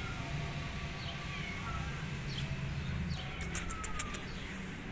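Small birds chirping in short, falling calls, with a quick run of thin high clicks a little past the middle, over a low steady background rumble.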